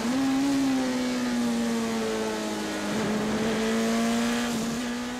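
Turbocharged Ford BDT four-cylinder engine of a Cheek C288 Group C2 prototype at racing speed, heard from inside the cockpit, holding a nearly steady high note that dips briefly about three seconds in. The engine runs with an air restrictor on the turbo and is down on power.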